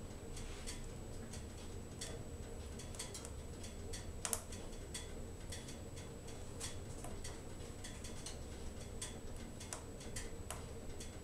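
Wood fire crackling in a closed wood-burning stove: irregular sharp pops and ticks from the burning split logs, with one louder pop about four seconds in, over a low steady rumble.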